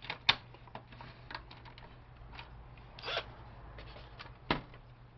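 Scattered clicks, rattles and knocks of printer parts being handled and pulled apart by hand during dismantling, with a sharp knock about a third of a second in and another near the end.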